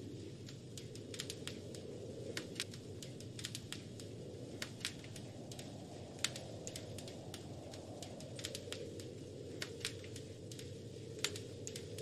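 Wood fire crackling, with irregular sharp pops and snaps, over a steady low rush of wind that swells and eases in slow gusts.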